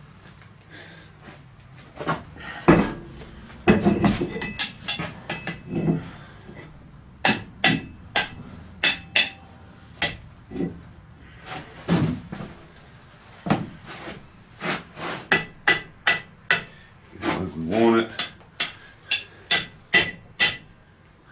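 Repeated metal-on-metal clanks and knocks as a heavy steel striking-anvil plate is set onto a steel stand top with blacksmith tongs and shifted into place. Many of the clanks ring on with a high metallic tone.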